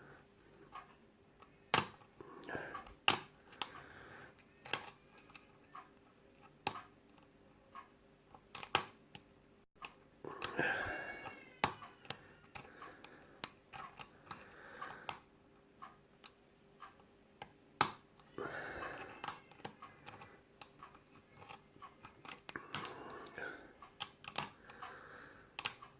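Lock picking on a Yale night-latch cylinder: irregular sharp metallic clicks and light scraping as the pick works the pins under tension. A few short pitched calls sound in between, about ten seconds in and twice more later.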